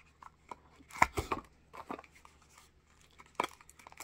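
A small cardboard box being handled: a few short taps, scrapes and rustles of card, the loudest cluster about a second in and another near three and a half seconds.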